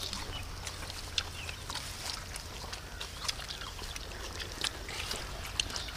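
Outdoor ambience: a steady low rumble with scattered small clicks and a few short high chirps.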